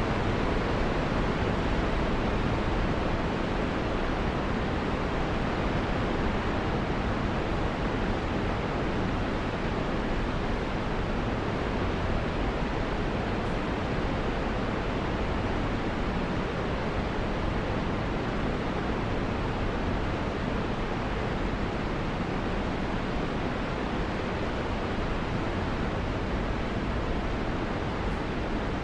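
Car driving at a steady speed: an even rushing road noise with no change in pitch.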